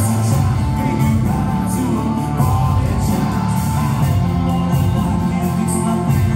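Live rock band playing, with a male lead singer singing over electric guitars and drums, heard from among the audience in a large hall.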